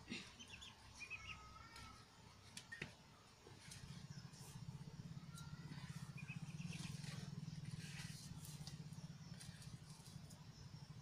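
Faint bird chirps over quiet rural ambience, with a few light clicks. A low droning hum comes in about four seconds in and becomes the loudest sound.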